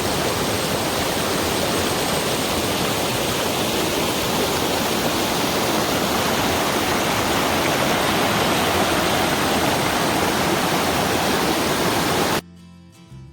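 Waterfall rushing, a steady loud wash of falling water that cuts off abruptly near the end.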